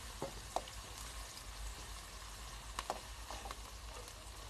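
Chopped onions, green chillies and curry leaves sizzling in hot oil in a metal kadai while a slotted metal spatula stirs them, with a few light taps and scrapes of the spatula against the pan.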